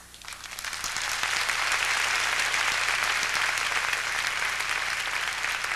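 An audience applauding, swelling over the first second, then steady, easing off slightly near the end.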